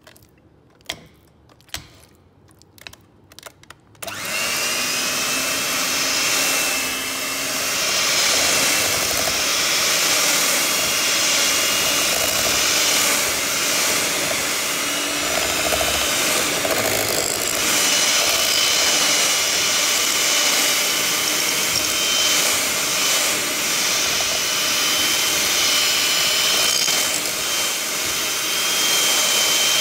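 Electric hand mixer switched on about four seconds in and then running steadily, its beaters whirring through cream cheese in a bowl. A few light knocks come before it starts.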